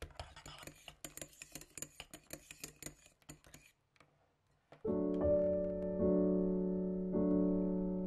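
Electric hand mixer (Revgen RHM101) whipping meringue in a glass bowl, with a low motor hum and an irregular clatter of the beaters clicking against the glass for nearly four seconds, then stopping. About five seconds in, gentle piano music starts and is the loudest sound.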